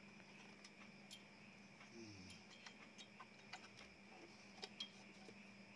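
Near silence: faint, scattered small clicks and taps of a radio's metal chassis, cables and connectors being handled and fitted together, over a faint steady hum.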